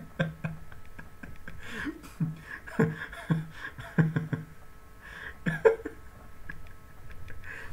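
Quiet, short vocal sounds from a man, coming every half second to a second, over faint steady tones.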